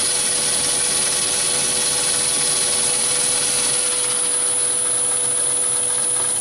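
Myford ML7 lathe running steadily while turning a bar under power feed, with the fine-feed 12/25-tooth tumbler gear fitted, and a thin steady whine over the machine noise.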